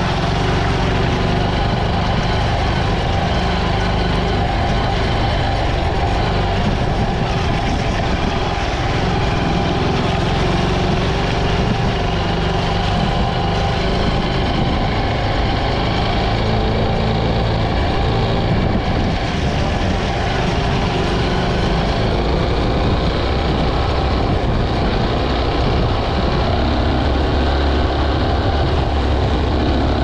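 Honda CT125's small single-cylinder engine running steadily as the motorcycle is ridden, its pitch shifting only slightly, with no sharp changes.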